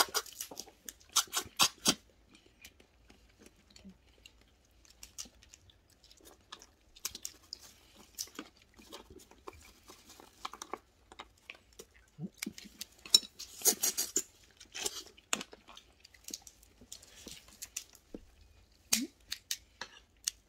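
Eating sounds: scattered clicks and cracks of red snow crab shells being handled and eaten, mixed with chewing, bunched near the start, about two-thirds of the way through and near the end.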